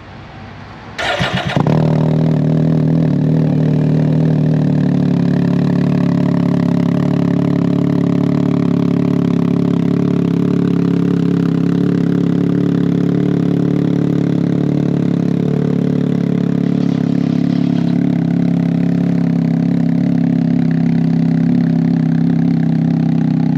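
Can-Am Ryker's Rotax 900 ACE inline three-cylinder engine, breathing through a polished RLS Twin Kaos exhaust, is cranked by the starter about a second in. It catches almost at once and settles into a steady idle.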